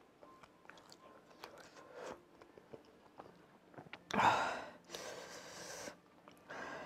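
Chewing and small wet mouth and finger-licking sounds of a man eating Carolina Reaper hot wings. About four seconds in there is a loud, sudden burst of breath, followed by a hissing breath and another burst near the end, as he reacts to the pepper's heat.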